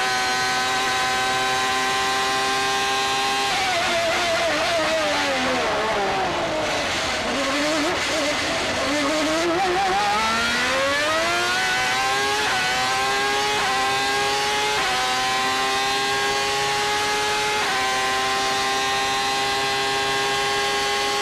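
Ferrari 412T2 Formula One car's 3.0-litre V12, recorded onboard. It runs near full revs, then drops in pitch through quick downshifts under braking about three seconds in, and pulls at low revs through the corner. It then climbs back up through the gears, with four sharp upshifts, to full revs on the straight.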